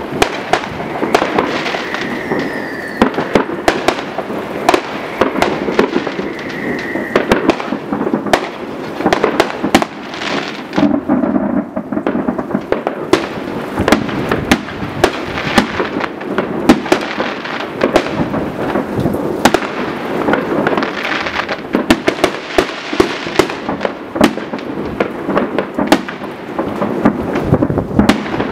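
Many fireworks going off at once: a dense, unbroken run of bangs and crackles over a steady rumble of more distant bursts. A thin steady whistle sounds through the first few seconds and again briefly a few seconds later.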